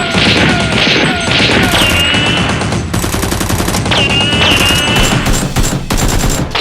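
Battle sound effects: a dense volley of rapid gunfire, with falling whistles near the start like incoming shells, under music.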